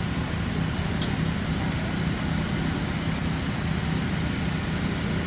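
Fire truck engine running steadily with a low, even rumble, under a constant hiss of noise.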